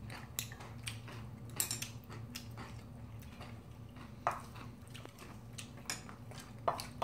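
Spoon and chopsticks clicking and scraping against a stainless steel mixing bowl and small dishes as bibimbap is mixed and eaten: scattered light taps, with a few sharper clinks, the loudest about four seconds in and near the end.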